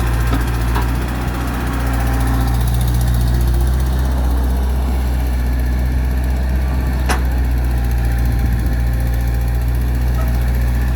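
Excavator's diesel engine running steadily while digging, with a single sharp knock about two-thirds of the way through.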